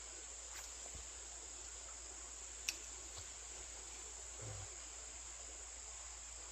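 Insects chirring steadily in one continuous high-pitched drone, with a single sharp click about two and a half seconds in and a few fainter ticks and a soft thump.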